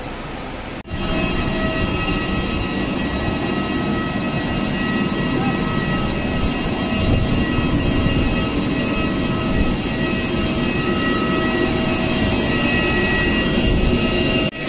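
Airliner engines running: a steady loud rush with a high whine of several steady tones over it. It starts abruptly about a second in, after a brief dip, and drops out again just before the end.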